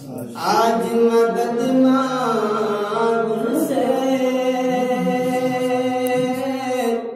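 A man's solo, unaccompanied devotional chant with long held, wavering notes; a new phrase begins just after the start and breaks off at the end.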